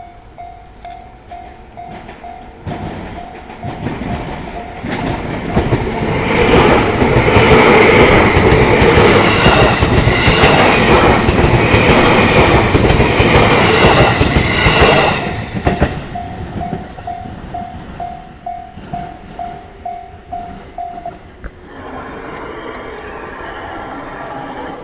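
Japanese level-crossing warning bell ringing at about three strokes a second while a train passes over the crossing. The train's wheels clatter loudly over the rail joints for about ten seconds and drown out the bell. The bell then rings on alone and stops near the end.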